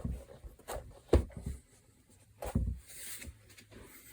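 Asus X541UA laptop being handled, turned over and set down on a desk: a few separate knocks and thuds from its plastic case, the loudest about a second in, with light rubbing between them.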